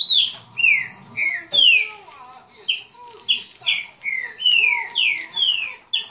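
Caged pixarro, a saltator, singing a run of loud, clear whistled notes, each sliding down in pitch, about two a second.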